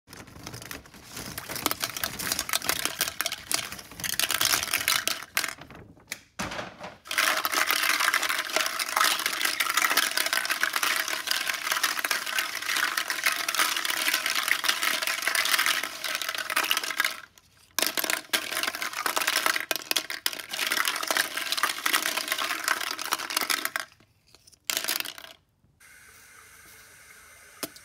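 Toilet flushing, a long loud rush of water through the bowl, with hollow plastic eggs clattering against each other and the porcelain. The rush stops abruptly several times and gives way near the end to a faint steady hiss.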